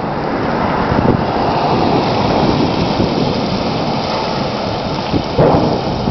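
Wind buffeting the microphone: a loud, steady rush of noise weighted toward the low end, with a stronger gust near the end.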